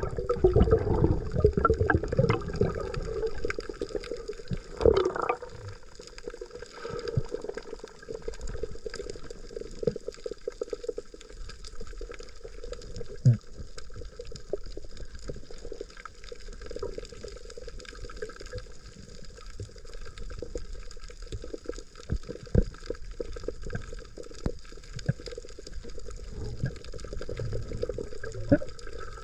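Sea water splashing and sloshing, with many small scattered clicks and knocks. It is busiest in the first couple of seconds, with a few louder knocks later on.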